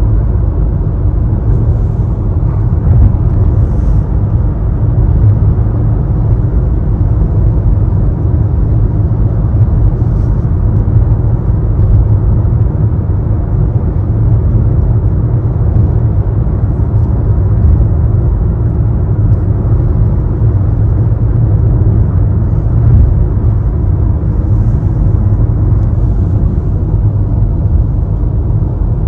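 Car cabin noise while driving on a wet motorway: a steady low rumble of tyres and engine.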